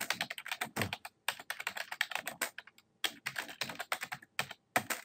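Typing on a computer keyboard: a fast, uneven run of keystrokes with two brief pauses.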